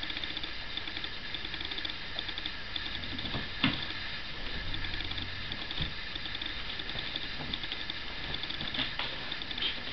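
Dog scratching and digging at the blankets in a cardboard box bed, nesting before she settles: a steady run of small rapid scratchy clicks, with a louder bump against the box about three and a half seconds in.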